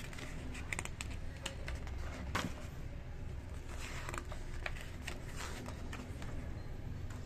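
Glossy magazine pages being handled and turned: a scattering of short, crisp paper rustles and flicks over a steady low hum.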